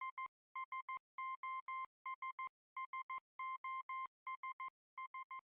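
Morse code beep tone keyed over and over as SOS: three short beeps, three long, three short, repeated with a pause between groups.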